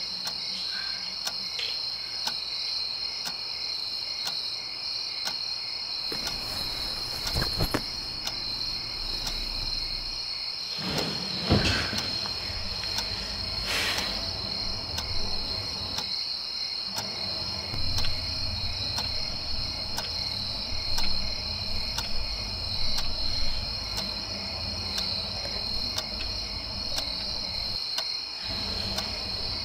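Crickets trilling steadily at a high pitch, with faint, evenly spaced ticking and a few soft knocks in the middle.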